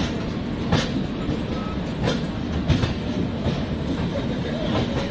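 Kathgodam Shatabdi Express coach rolling out of a station: a steady rumble with irregular sharp clacks of the wheels over rail joints.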